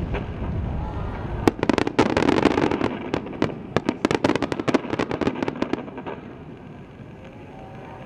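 Fireworks starmine barrage, aerial shells bursting in rapid succession: a sharp bang about a second and a half in, then a fast run of crackling reports over a low rumble for about four seconds, dying down to a fainter rumble near the end.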